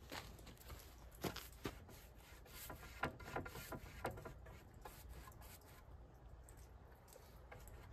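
Faint rubbing of a paintbrush laying exterior polyurethane onto a sanded wooden oar blade, with a few sharp clicks and taps, the loudest about three seconds in.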